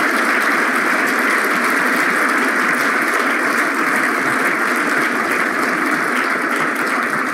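Audience applauding: a steady round of clapping from many hands at once.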